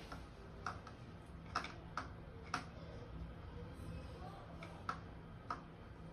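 About six light, sharp clicks and taps at irregular intervals from small bowls and a plastic tray being handled on a kitchen counter while food is coated by hand, over a faint steady low hum.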